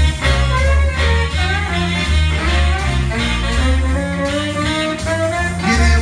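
Live blues band in an instrumental break: a saxophone plays a melody over a steady, stepping bass line and backing.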